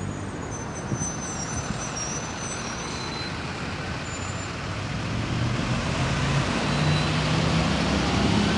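Road traffic: a steady wash of passing cars' engine and tyre noise, with a bus's engine growing louder over the last few seconds as it approaches.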